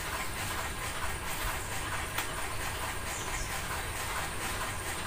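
Steady background hiss with a few faint ticks.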